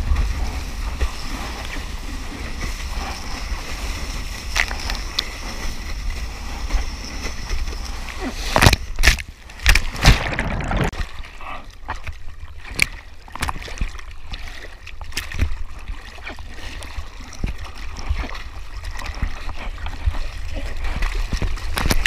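Ocean water sloshing and splashing against a surfboard as the surfer paddles with the arms, over a steady low rumble; a burst of loud splashes comes about nine to ten seconds in.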